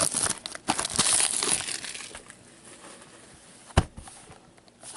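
Plastic wrapping and cardboard of sealed trading-card boxes crinkling and tearing as they are opened, busiest in the first two seconds, then quieter rustling. A single sharp knock a little before the end.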